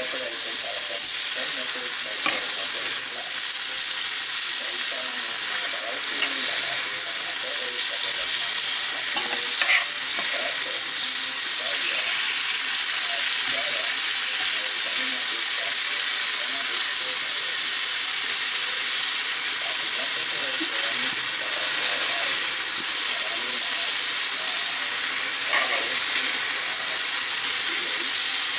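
Food sizzling steadily in a hot pan while a utensil stirs and scrapes against it, with an occasional clink.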